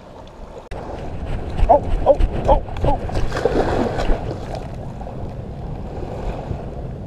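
Onshore wind buffeting the microphone over surf washing on the beach. A quick run of four short pitched cries comes about two seconds in, followed by a rougher patch of noise.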